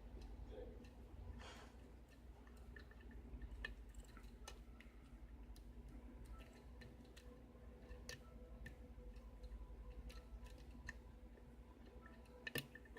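Faint, scattered ticks and clicks of a lock pick and tension tool working the pins of a six-pin tumbler lock, with a louder couple of clicks near the end.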